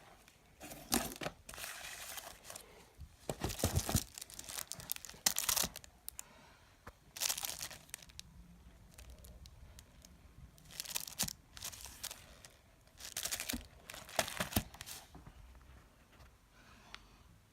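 Packaging being handled and torn open by hand: wrapping crinkling and tearing in irregular bursts, some of them a second or more long, with short pauses between.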